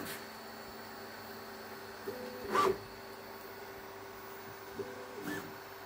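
Creality Ender 3 V3 KE 3D printer mapping its bed during auto-levelling: a steady faint hum, with two short whirs as the stepper motors move the print head to the next probe point. A brief louder noise sounds about two and a half seconds in.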